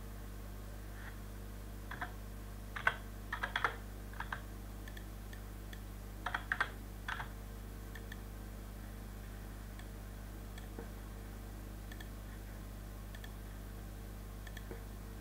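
Keystrokes on a computer keyboard as numbers are typed in: a burst of a handful of keys about two to four seconds in and a few more about six to seven seconds in, over a steady low electrical hum.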